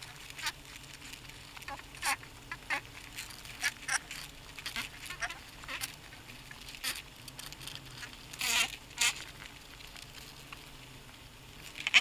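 Heterotrigona itama stingless bees buzzing in short, separate passes as they fly close by inside the hive, a cluster of louder buzzes about eight and a half seconds in, then a quieter stretch near the end.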